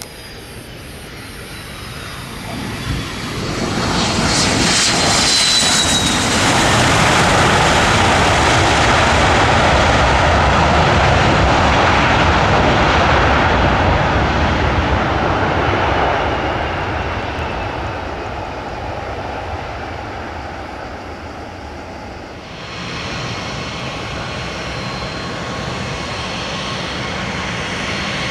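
Jet airliner engines passing by. The sound builds over a few seconds to a loud rush with a brief falling whine, holds for about ten seconds, then fades. About 22 seconds in it changes abruptly to a steadier, quieter engine noise.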